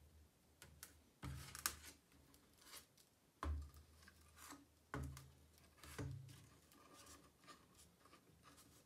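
A hacksaw's steel frame and blade being handled and set down on a board: a handful of light knocks and clicks.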